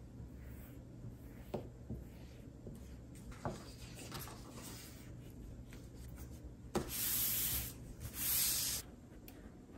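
Hands smoothing a sheet of paper flat onto glued corrugated cardboard. A few light knocks early on, then a click and two loud, dry swishes of palms sweeping over the paper near the end.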